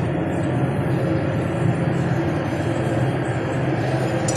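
Steady drone of running machinery, with several low hum tones and no change in level. A light click comes near the end.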